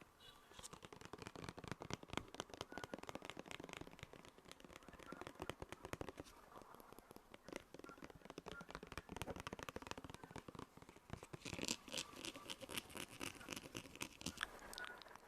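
Close-miked ASMR rubbing and tapping for a simulated sunscreen application: a dense, steady run of small crackling clicks and scratches, a little busier about twelve seconds in.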